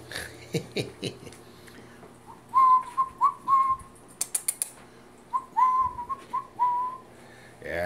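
A person whistling short, repeated notes to call puppies to follow: a quick run of about four whistles, then after a pause about five more. A few sharp clicks come between the two runs.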